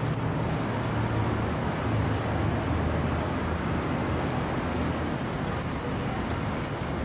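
City street traffic noise: a steady wash of passing cars and buses with a low engine hum underneath.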